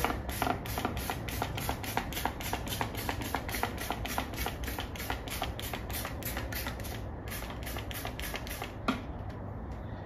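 Trigger spray bottle of soapy water pumped rapidly onto a dirt bike rim and tire, about four short hissing sprays a second, wetting the rim so the tire bead slips on. The spraying stops near the end with a single knock.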